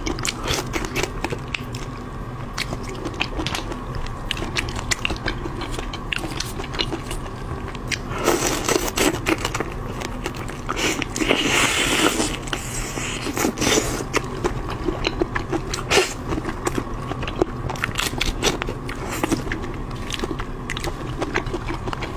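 Close-miked eating of a whole marinated raw shrimp: the shell crackles and clicks as it is peeled, then the meat is bitten and chewed wetly. There is a louder, noisier stretch from about eight to fourteen seconds in, while the shrimp is held at the mouth.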